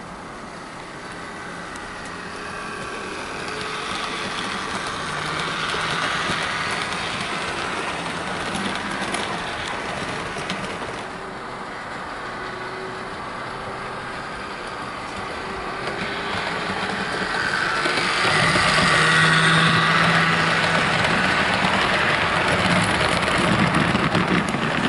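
Heljan OO gauge Class 17 Clayton model locomotive running with a loaded train of coaches: the electric motor whirs and the wheels rumble on the rails. It grows louder as the train passes close, about six seconds in and again from about eighteen seconds on. The owner calls the motor in this model noisy.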